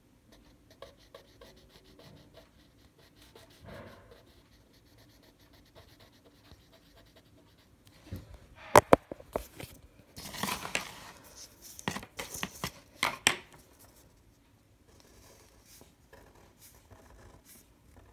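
Fine-tip marker scratching faintly on paper, broken about halfway through by a few loud sharp clicks and knocks with some rustling as the marker is set down on the paper and handled.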